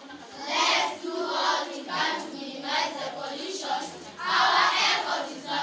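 A group of children's voices in chorus, delivering words together in phrases of about a second with short breaks between them.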